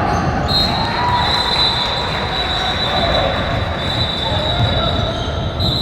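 Noise of a basketball game in a gymnasium: voices and a ball bouncing on the court, with a steady high-pitched whine starting about half a second in.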